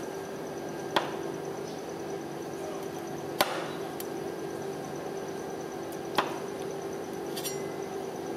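Metal spatula blades chopping fruit into cream base and striking a stainless-steel ice cream cold plate: three sharp clacks, about one, three and a half and six seconds in, with a few lighter taps between, over a steady low hum.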